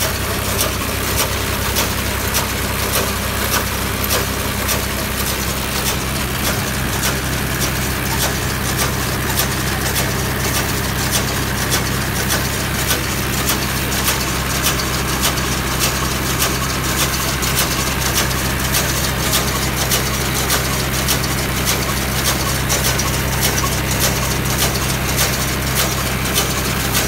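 Swaraj 744 XM tractor's three-cylinder diesel engine running steadily while driving a round straw baler, with a fast, regular ticking over the engine sound.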